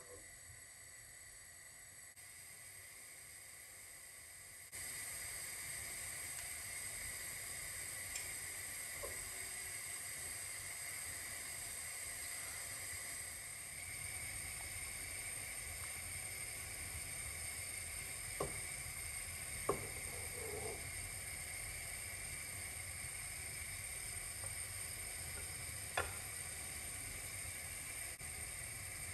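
Steady hiss and sizzle of a pot of milk heating on a gas burner. It gets louder about five seconds in. A few light clicks come from the plastic spoon touching the pot, twice close together past the middle and once near the end.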